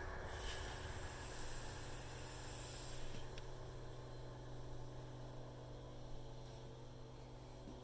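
Steady low machine hum, with a hiss over the first three seconds or so.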